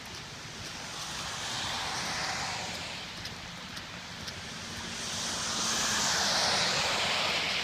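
Storm runoff rushing across a flooded paved road: a steady rushing noise with no separate events, growing louder over the last few seconds.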